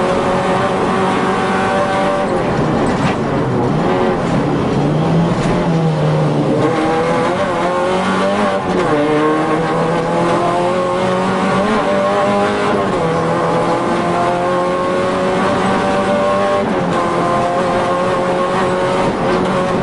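Rally car engine revving hard under full acceleration, heard from inside the cabin: the pitch climbs through each gear and drops at every upshift, several times over.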